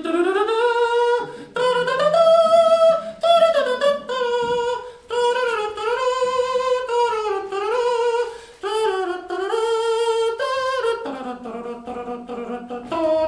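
A voice singing or humming a wordless tune without accompaniment: held notes that slide between pitches, broken by short pauses every couple of seconds.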